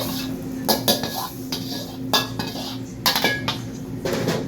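Metal spatula clanking against a pan as chicken fried rice is stir-fried: a few sharp metallic clanks at uneven intervals, over a steady low hum.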